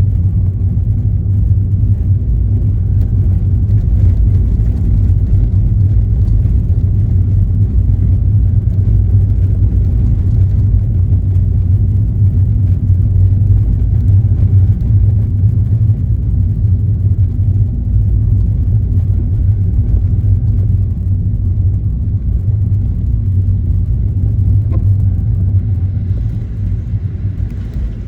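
Steady low rumble of a car driving: engine and road noise, easing slightly near the end.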